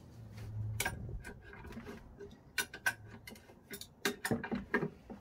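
Irregular light metallic clicks and taps from an old bench vise being worked by hand, coming more often in the second half, as its welded-on part is tried.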